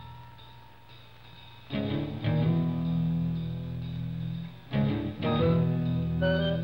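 Cartoon underscore music with plucked guitar-like notes. A single note dies away at the start. After about a second and a half, low bass notes and chords come in, and a higher plucked melody joins near the end.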